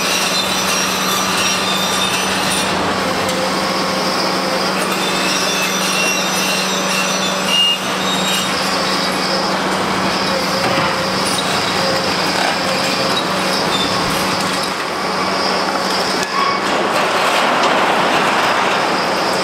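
Heavy demolition excavator working, its diesel engine a steady drone under load while its demolition jaws crush the concrete deck, with grinding and high metallic squeals from concrete and steel. A short loud knock about eight seconds in.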